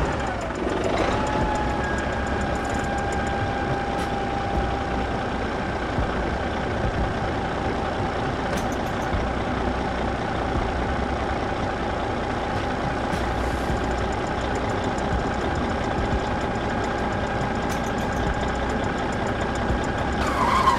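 A small motor running steadily with a thin whine that climbs briefly as it spins up, then holds.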